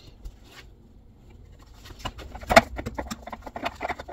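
Ribbed plastic vacuum hose, its end coated in adhesive, being twisted and screwed into its plastic port. After about two seconds of quiet there is a quick, irregular run of plastic clicks and scraping, with one sharp, loud click about halfway through.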